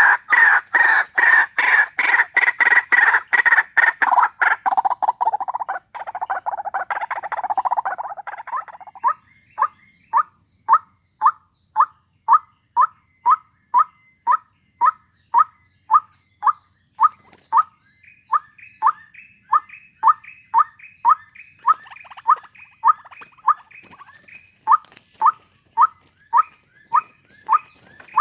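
White-breasted waterhen calling: a rapid run of loud repeated calls for the first few seconds, a rough churring stretch, then a steady series of short single notes at about one and a half to two a second.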